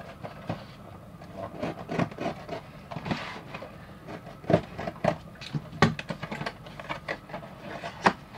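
Thin cardboard blind box being cut open with a utility knife and its flaps worked by hand: scraping and rubbing of card with sharp clicks and taps, the loudest about halfway through and again near the end.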